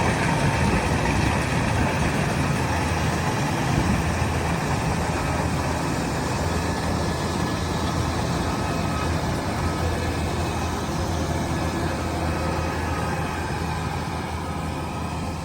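Kubota DC-108X rice combine harvester running, its diesel engine and threshing machinery making a steady, dense drone that grows slightly fainter near the end.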